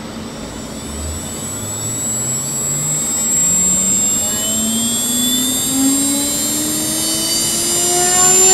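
CNC router spindle spinning up toward about 20,000 RPM with a 3D-printed PLA bit fan on the bit: a whine that rises steadily in pitch and levels off near the end, over a steady high-pitched tone.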